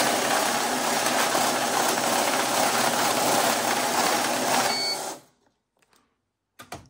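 Cummins JetScan currency counter feeding and counting a stack of one-dollar bills, a dense, steady whirring flutter. About five seconds in it stops with a short beep on reaching its strap limit of 100 notes, and a single click follows near the end.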